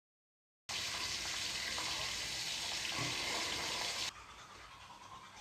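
A steady hiss of water that starts abruptly after a short gap of dead silence and drops suddenly to a fainter hiss about four seconds in.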